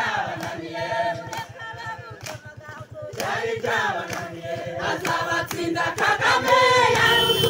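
A crowd singing together without instruments, a chant-like group song of many voices; it grows louder about three seconds in.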